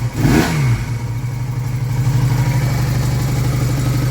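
Honda CD175's parallel-twin engine running just after a cold start. A quick throttle blip in the first second falls back into a steady idle.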